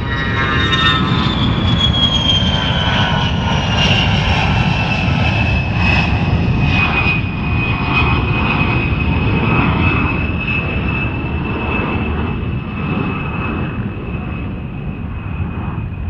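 Jet aircraft engine running with a high whine over a steady low rumble; the whine falls in pitch over the first six seconds or so, then holds level.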